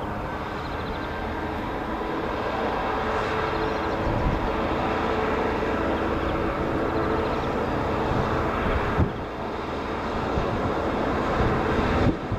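Freightliner Class 66 diesel-electric locomotive running under power as it hauls a train of hopper wagons, its diesel engine droning steadily and growing slowly louder as it approaches.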